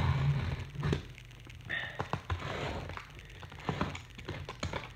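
A box cutter slitting the side of a cardboard shipping box: rasping scrapes of the blade through the cardboard between several light knocks and taps of the box being handled.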